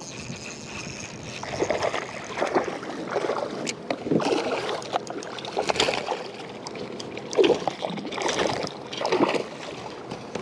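Irregular splashing of a hooked fish thrashing at the surface beside a kayak as it is brought in and landed with a net.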